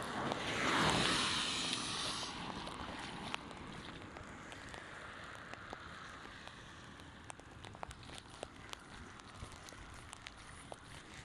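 Rain and running water, with a louder rushing swell that peaks about a second in and fades after about two seconds, then steadier noise scattered with sharp ticks.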